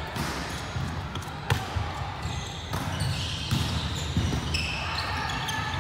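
Volleyball play on a wooden court: sharp hand-on-ball hits of a serve and rally, the loudest about a second and a half in, with squeaks of shoes and players' calls echoing in a large hall.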